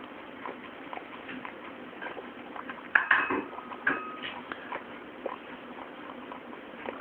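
Dog eating soft okara from a stainless steel bowl: small wet chewing and licking clicks all through, with a few louder clinks of the metal bowl about three to four seconds in, one of which rings briefly.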